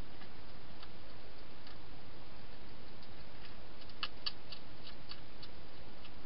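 Wild hedgehog chewing dry food, heard as irregular sharp clicks with a quick run of louder ones about four seconds in, over a steady hiss.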